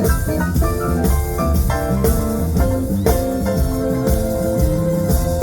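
Live blues band playing an instrumental passage, with drum kit and cymbals under guitar. A single note is held for the second half.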